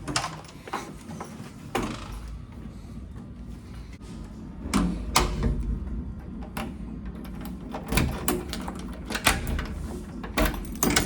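Irregular clicks, knocks and clatters of things being handled and set down in a small room, over a low background hum.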